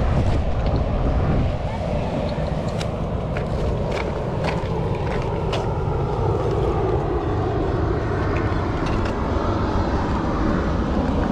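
Wind rumbling on the microphone of a camera riding on a moving mountain bike, with scattered clicks and rattles from the bike.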